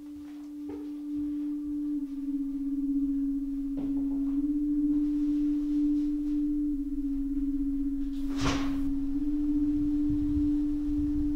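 A single held synthesized drone tone from the film's score, swelling in over the first two seconds and then holding with slight shifts in pitch. A short whoosh about eight and a half seconds in, followed by a low rumble.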